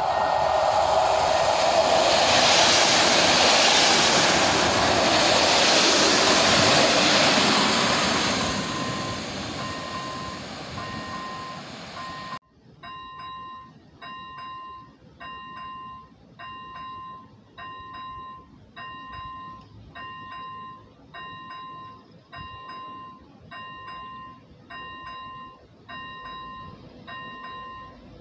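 A locomotive-hauled passenger train passing close by, loudest in the first eight seconds and then fading. After a sudden change about twelve seconds in, an electronic level-crossing warning bell rings steadily, about once a second.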